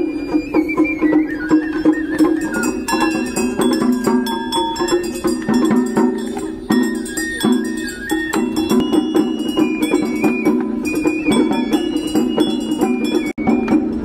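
Music: a stepping melody over steady sustained low notes, with light clicking percussion.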